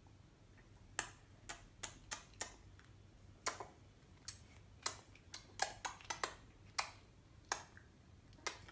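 A string of irregular light clicks and taps, about twenty of them, starting about a second in and bunching closer together near the middle.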